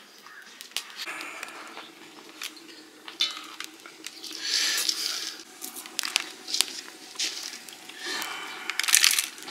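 Kitchen things being handled: scattered light clicks and taps, with a short rattling rustle about halfway through and another near the end.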